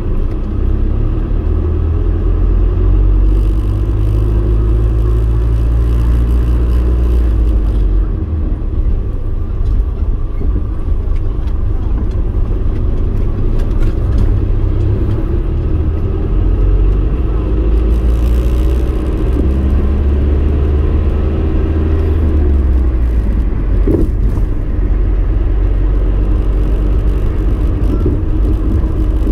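A vehicle driving along: a steady engine and road rumble whose pitch rises and falls a few times as it speeds up and slows.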